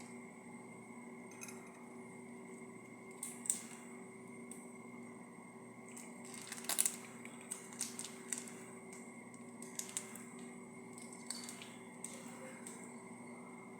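Scattered light clicks and taps of tableware, loudest in a cluster about seven seconds in, over a steady electrical hum.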